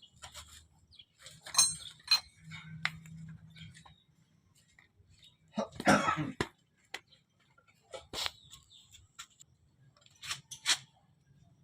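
Scattered metal clinks and knocks of tools and manual-transmission parts being handled, with a louder burst of noise about six seconds in.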